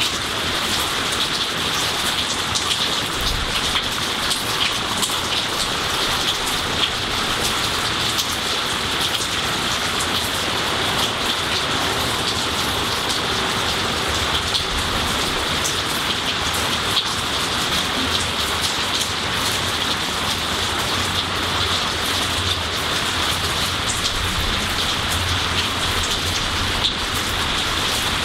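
Steady rainfall on trees and garden foliage: an even hiss of rain with many individual drops ticking close by.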